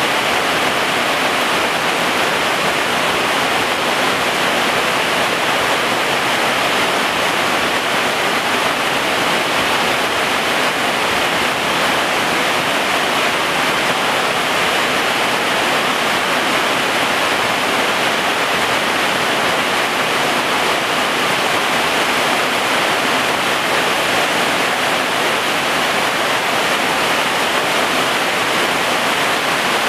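Heavy rain falling on garden foliage and ground: a loud, even hiss that holds steady throughout.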